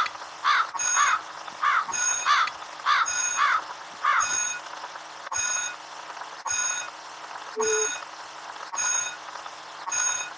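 Electronic beeping, one beep about every two-thirds of a second, like an alarm clock. Over the first four seconds or so, about seven short calls falling in pitch are mixed in on top.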